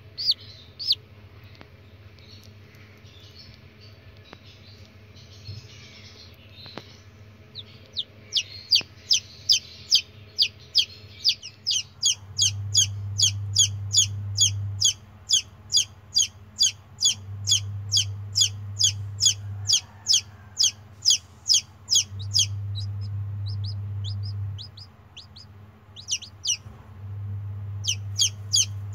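Chicken chick peeping: a rapid train of short, high peeps, about three a second, sparse at first and steady from about eight seconds in. A low hum switches on and off for a couple of seconds at a time through the second half.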